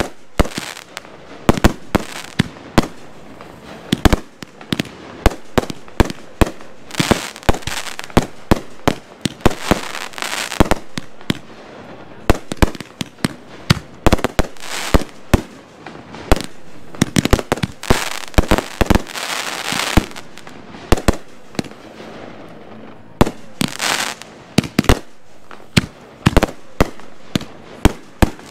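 Consumer aerial fireworks going off during a backyard show of 500-gram cakes and reloadable shells: dozens of sharp bangs at irregular intervals, some in quick clusters, with noise between them.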